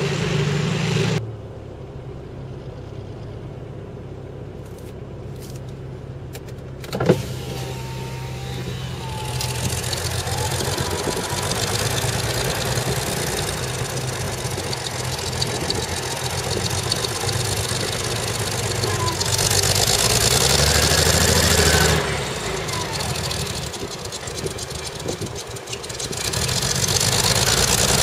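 Jaguar J60 straight-six petrol engine of a CVR(T) Striker running rough and misfiring badly, caused by a stuck valve. Its sound drops sharply about a second in, a single sharp knock comes about seven seconds in, and the engine note then builds and swells again, loudest near the end.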